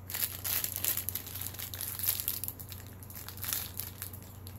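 Packaging crinkling and rustling as it is handled, in irregular crackles.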